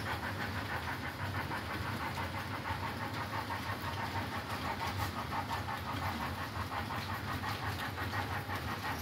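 Model steam locomotive running under its sound system: a rapid, even chuffing over a steady low hum.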